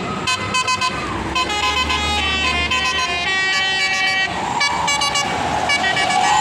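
Indonesian bus 'telolet' musical horn playing a tune of short notes that change pitch, some played quickly in a row and others held longer.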